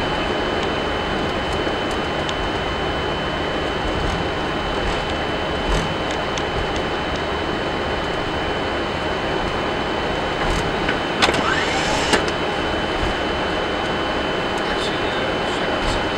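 Steady cabin noise in a Boeing 747-400ERF cockpit during the landing roll-out: an even rush of engine and air noise with a thin steady high tone in it. A couple of sharp clicks come about two-thirds of the way through.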